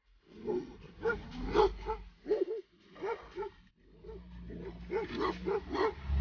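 Tibetan mastiff (do khyi) barking in short, repeated barks. The barks come faster and louder over the last two seconds.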